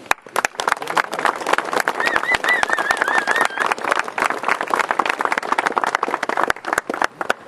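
Audience applauding with dense, close clapping, and a high wavering cheer about two seconds in. The clapping thins to a few scattered claps near the end.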